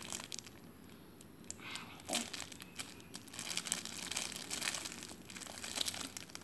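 Clear plastic bag crinkling irregularly as the squishy toy sealed inside it is handled, busiest from about two seconds in.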